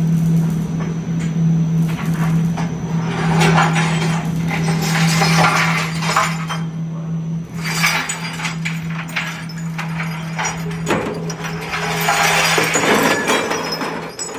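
Inclined-drum shot blasting machine running with a steady motor hum, while small metal parts clatter and tumble in the rotating drum in repeated spells. Near the end the drum unloads, the parts clinking out into a tray.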